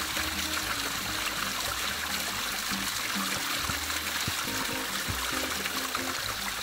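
Spring water trickling off rock and splashing steadily over and into a plastic bottle being filled, with background music playing over it.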